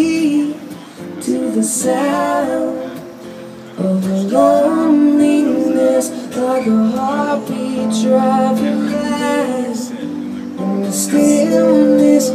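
Live band music: a woman singing over strummed acoustic guitar and keyboard, dropping quieter for a moment about three seconds in.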